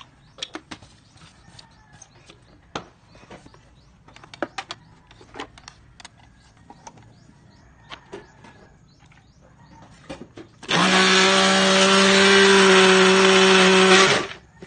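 Scattered light clicks and knocks, then about ten seconds in an electric blender starts and runs steadily for about three and a half seconds, chopping torn papaya leaves in a little water, before it stops.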